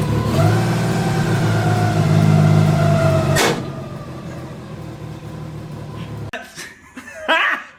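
A loud mechanical hum with a whine that rises and then holds steady, ended by a sharp click about three and a half seconds in. A fainter hum carries on and cuts off abruptly a few seconds later, and a short shout comes near the end.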